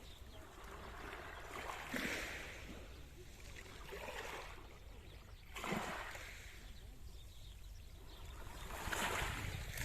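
Small Mediterranean waves breaking gently on the shore of a calm sea, four soft washes of surf a few seconds apart.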